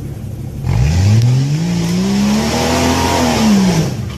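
A 4x4's engine revved hard under full throttle as it climbs a steep rock face: the note rises sharply in pitch about a second in, holds high with a loud rushing hiss, then drops off and cuts out just before the end.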